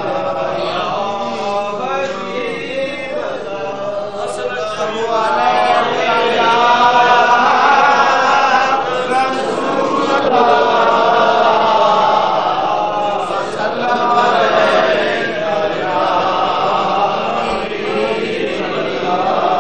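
A crowd of men chanting together, many voices overlapping in a devotional chant, a little louder from about six seconds in.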